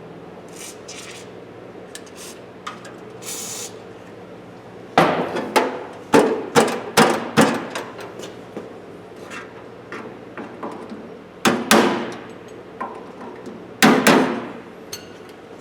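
Hammer blows on the sheet-steel parts of an old Craftsman toolbox, as the box is knocked apart. A quick run of about six sharp strikes comes about a third of the way in, then two more pairs of strikes, each with a short metallic ring.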